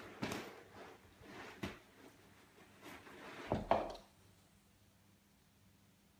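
A young schnauzer puppy scrambles on a bean bag, making several bursts of rustling and scuffing on its cover. About three and a half seconds in, the loudest of them comes with a soft thump as the puppy comes down onto the wooden floor; then it goes quiet.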